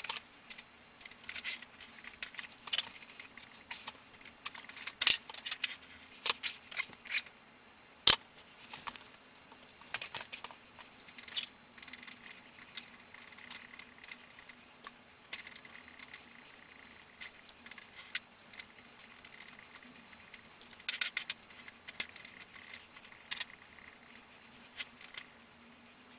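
Scattered metallic clinks, ticks and rattles of hand tools and loose metal parts being handled while a bicycle crank arm and chainring are taken off, over a faint steady hum.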